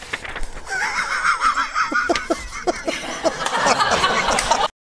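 A man laughing heartily in short repeated bursts, with paper rustling as he handles a sheet. The sound cuts off abruptly near the end.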